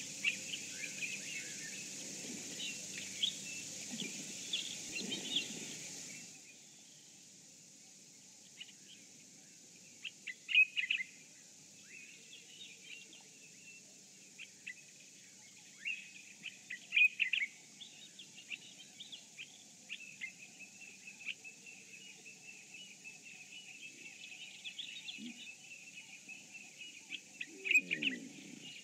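Wild birds chirping and calling in scattered short phrases, the morning chorus of open bush. A steady hiss sits under them for the first six seconds or so, then drops away.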